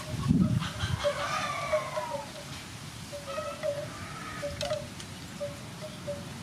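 A rooster crowing once: a single arched call of about a second that rises and falls, over short repeated peeps from poultry. A low thud comes just before it.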